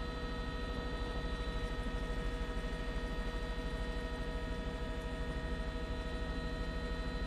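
Helicopter cabin noise heard through the intercom: a steady drone with several steady whining tones over a fast, even low pulsing.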